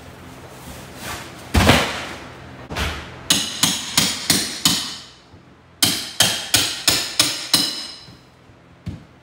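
A heavy thud about a second and a half in, then two quick runs of about five hammer blows each on the wooden wall framing, every blow ringing with a sharp metallic ring.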